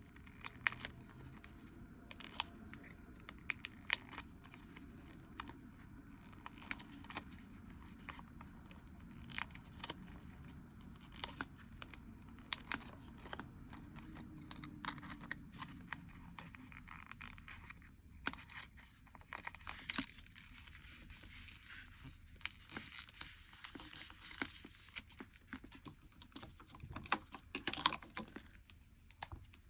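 Soft crinkling and rustling of origami paper being folded and creased by hand, with many small scattered clicks and taps.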